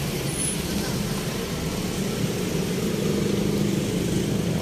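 Steady background din of a busy market, with a low, even hum underneath.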